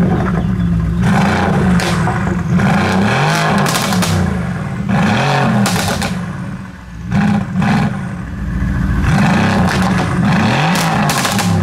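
Mercedes-AMG GT R's 4.0-litre twin-turbo V8 with titanium exhaust, stationary and revved repeatedly, the engine note rising and falling about half a dozen times, with sharp cracks from the exhaust between revs.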